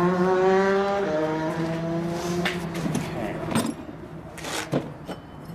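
An engine running at a steady pitch, dipping slightly about a second in and dying away about three seconds in. Then come several sharp clicks and knocks.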